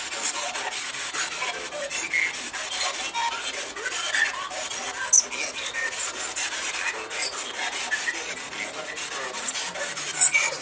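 Hissing radio static, chopped by many quick crackles, from a spirit-box style radio sweep.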